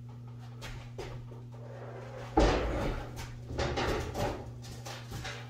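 A motorcycle being wheeled onto a steel lift table: a sudden loud clunk about two and a half seconds in, then a second burst of clattering and knocking about a second later, over a steady low hum.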